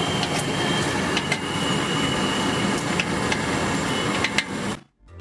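Steady noisy background of a street food cart, with light clicks and taps as a small knife trims and peels a red onion by hand. The sound cuts out abruptly near the end.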